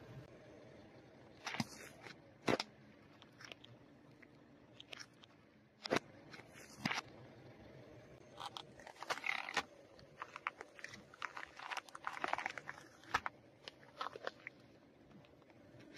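A car tyre rolls over and crushes objects on asphalt: a plastic tub of slime with foam beads, then a lime, a lemon and an apple. There are single sharp cracks and pops in the first seven seconds, then dense bursts of crunching between about 8 and 13 seconds.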